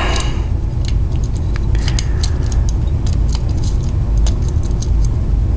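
Light metallic clicks and ticks, scattered irregularly, from a lock pick and tension wrench working the pin stack of a cheap US Lock mailbox cam lock during single-pin picking, over a steady low hum.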